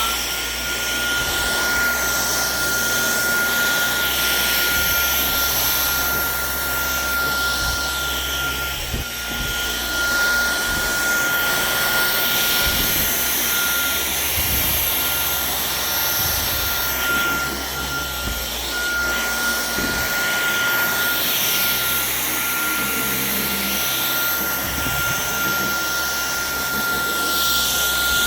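Dyson V11 Torque Drive cordless stick vacuum running on carpet: a steady high-pitched motor whine over rushing suction noise. The rushing swells and eases every few seconds.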